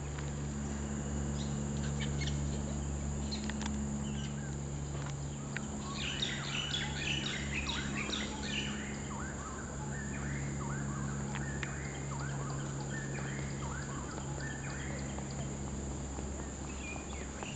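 A wild bird calling in a quick run of short chirps through the middle few seconds, over a steady low hum and a thin, steady high whine.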